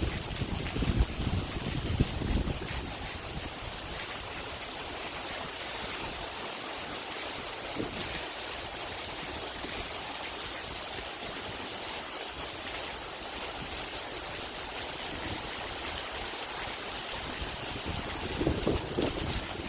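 Heavy rain pouring down, a steady hiss, with a few low thumps in the first couple of seconds and again near the end.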